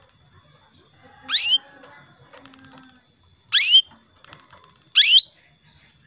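Female canary giving three short, loud call notes, each rising sharply in pitch, one to two seconds apart: the hen's calls used as a lure to set a male canary singing.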